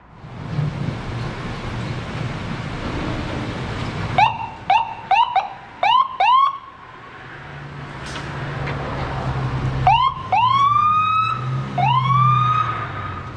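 Ford ambulance's engine running as it pulls out. Its electronic siren gives five quick rising chirps about four seconds in, then a short chirp and two longer rising whoops near the end.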